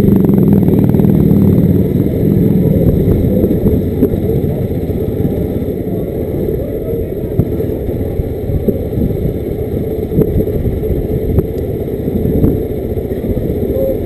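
A 250 cc motorcycle engine running at low speed, heard from on the bike: a steady low rumble that is a little louder for the first couple of seconds, with road and wind noise.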